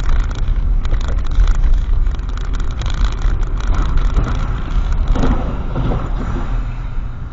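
Car driving on a wet street, recorded by a dashboard camera inside the cabin: a steady low engine and road rumble with frequent small clicks and rattles, and a brief louder mid-pitched sound about five seconds in.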